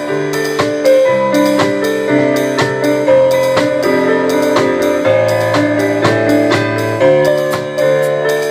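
Instrumental music: piano or keyboard chords over a steady drum beat.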